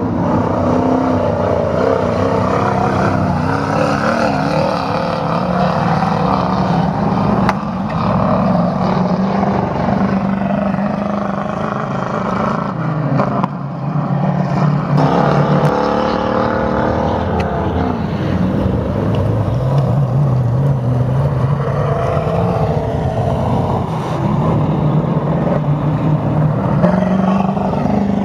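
Engines of several autocross racing buggies running hard at racing revs, the pitch rising and falling as they accelerate and pass. The sound dips briefly and changes about halfway through.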